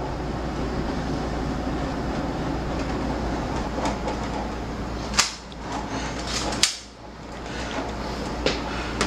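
Two sharp clicks from a handgun being handled, about five and six and a half seconds in, with a few softer ticks, over a steady hiss.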